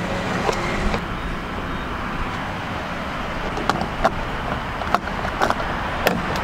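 Chevrolet Cruze fuel cap being screwed onto the filler neck, giving a run of short plastic clicks as it tightens, then the fuel door pressed shut with a sharper click near the end. Under it runs a steady rushing background noise.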